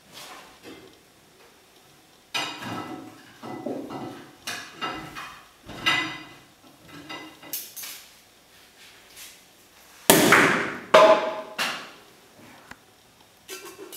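Cutlery working a cooked lobster on a plate: a run of knocks, cracks and scrapes of knife and fork against shell and china. About ten seconds in come two louder clatters that ring briefly.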